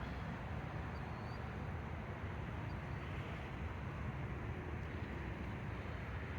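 Steady low outdoor background rumble with no distinct events, and two faint high chirps about one and three seconds in.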